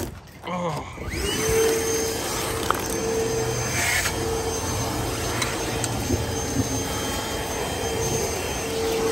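Electric shop vacuum switching on, its motor winding up to speed about a second in, then running with a steady whine and rush of air.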